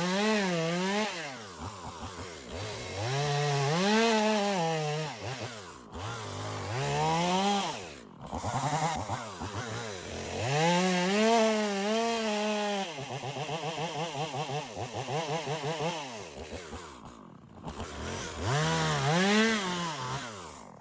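Two-stroke gasoline chainsaw bucking logs, the engine revving up under throttle as it cuts and dropping back toward idle between cuts, about five times.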